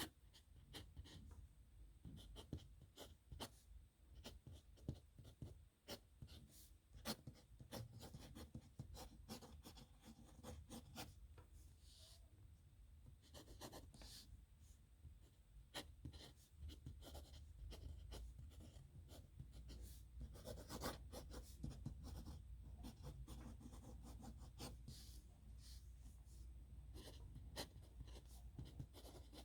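Pen writing signatures on paper: faint, quick, irregular scratching strokes.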